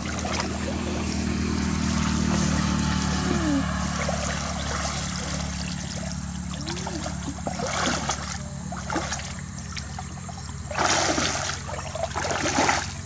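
Water sloshing and splashing as a woven bamboo scoop basket is worked through a shallow, muddy stream and lifted out, with short louder splashes near the end. A steady low engine hum runs underneath.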